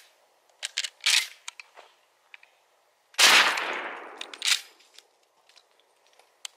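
A single 12-gauge shotgun slug shot, about three seconds in, with a loud report that rings away over about a second; a sharp click follows just after, and a few fainter clicks come before it.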